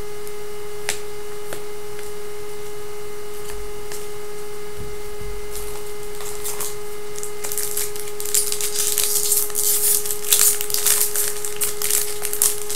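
A steady single tone hums without a break, with foil card-pack wrappers crinkling and trading cards being handled and shuffled from about eight seconds in.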